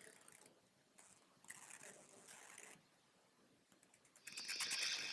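Slow breaths through one nostril, a soft airy hiss of air through the nose: faint about a second and a half in, then louder from about four seconds in.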